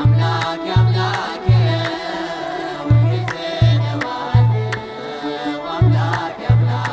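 Ethiopian Orthodox mezmur: a group of voices singing a hymn over deep kebero drum beats, which fall about once a second in an uneven repeating pattern. Sharp hand claps land along with the beat.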